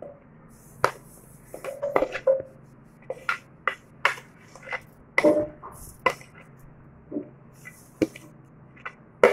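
A metal spoon scraping and tapping against a plate and the rim of a steel mixer jar as grated coconut and coriander leaves are pushed into the jar: about a dozen sharp, irregular clicks and taps, a few with a short clink.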